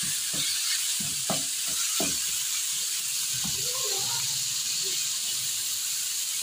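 Minced meat and chopped onion sizzling steadily in a non-stick frying pan. A wooden spoon stirs and knocks against the pan several times in the first few seconds.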